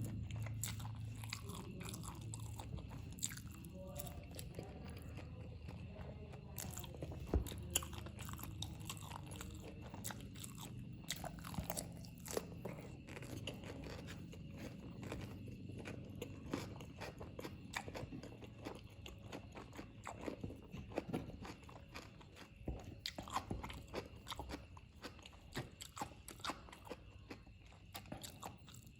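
Close-miked chewing and mouth sounds of a person eating spicy fried noodles: a steady, irregular stream of small wet clicks and smacks.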